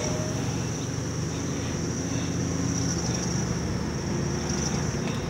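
Steady low engine and road rumble inside a car's cabin as it drives slowly along a street, with a steady high-pitched hiss over it.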